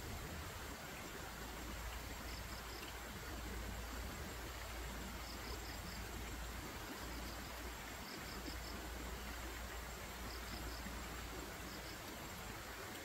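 Steady outdoor background hiss over a low rumble, with faint insect chirps in short trains of three or four pulses that recur every second or two.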